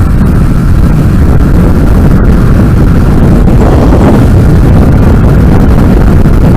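Loud wind buffeting on the microphone while riding a motorcycle, with the bike's engine and road noise underneath and a brief swell about four seconds in.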